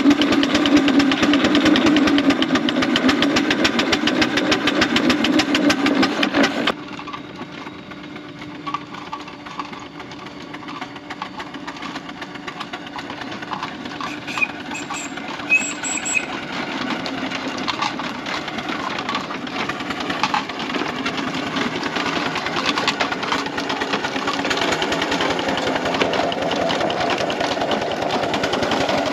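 4-inch scale Foster steam traction engine chuffing as it drives, working on about 60 psi of steam, with rapid exhaust beats loud and close. About seven seconds in the sound drops to a more distant chuffing that grows steadily louder as the engine comes nearer and passes.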